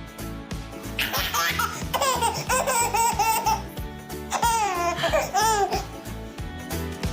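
A baby laughing in high-pitched squeals, in two bouts: one starting about a second in and another a little past four seconds. Background music with a steady beat plays underneath.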